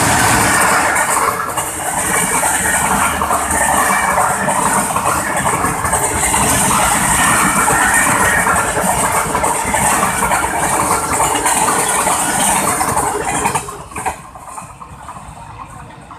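Pakistan Railways express passenger coaches passing close by at speed: a loud, steady rush and rumble of wheels on the rails. It drops away suddenly about 14 seconds in as the last coach goes by.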